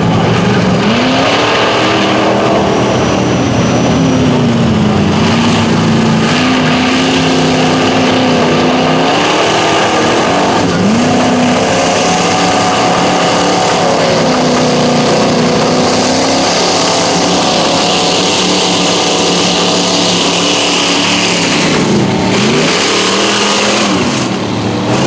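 Lifted Ford F-150 mud truck's engine revving hard as it drives through deep mud with its tyres spinning. The engine note rises and falls several times: a climb about a second in, another near the middle, and a dip and climb near the end.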